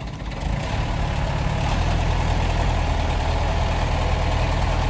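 Heavy diesel truck engine running under load as it pulls a stuck pickup on a tow cable, growing louder over the first two seconds and then holding steady.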